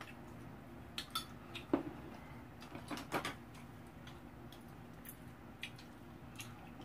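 Eating utensils clicking and tapping against a bowl of noodle soup: about eight scattered light clicks, the loudest a little under two seconds in and just after three seconds.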